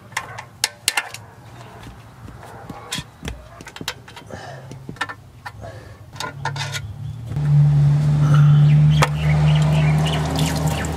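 Irregular sharp clicks of a ratchet and socket as the bolts holding a Toyota automatic transmission filter are loosened. About seven seconds in, a louder steady low hum with a rush sets in as transmission fluid pours out of the filter into the drain pan.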